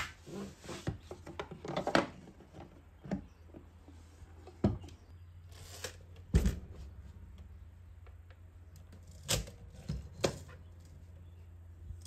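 Hand brushing over a fabric-covered typewriter case, then a series of separate clicks and knocks as the case is opened and a Smith-Corona Silent portable typewriter is handled on a wooden bench. The loudest knock comes about six seconds in, over a steady low hum.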